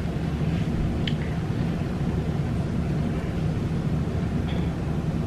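A steady low hum of background noise, with a faint tap or two as small items are handled.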